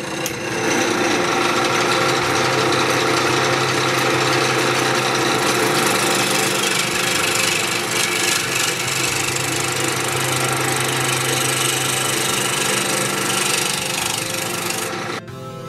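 Wood lathe spinning a mountain ash (rowan) blank while a hand-held turning tool cuts along its side to true it up: a steady, loud cutting hiss of shavings coming off. The cut stops suddenly near the end, leaving the lathe's low hum.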